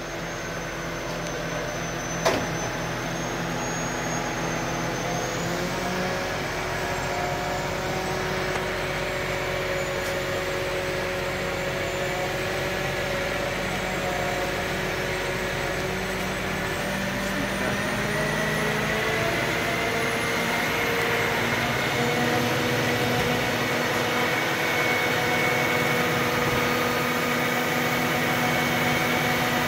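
Crane engine running steadily, its pitch shifting up and down a few times, with a single sharp knock about two seconds in.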